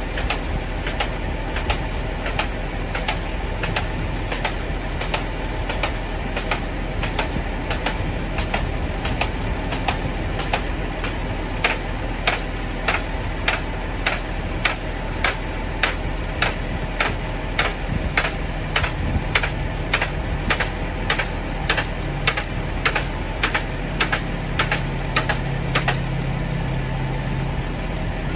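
Car transporter truck running at idle while its hydraulics work the upper deck, with a regular ticking about twice a second. About two-thirds of the way in, a low steady hum comes in under the ticking.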